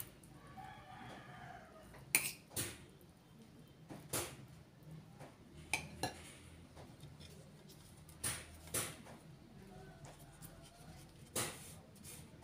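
Metal spoon clinking against ceramic plates in a series of sharp clinks, several in pairs, as lumpia filling is scooped and spread. A rooster crows faintly in the background about a second in.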